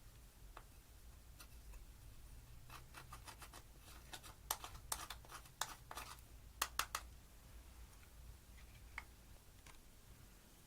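Slime being pressed and poked by hand: a run of sharp little clicks and pops, thickest a few seconds in, over a faint low hum.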